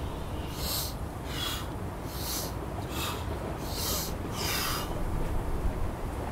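A person exhaling in six short, hissing breath pulses over a few seconds, the voiced exhalation of the liver exercise in Six Healing Sounds qigong. A steady low rumble runs underneath.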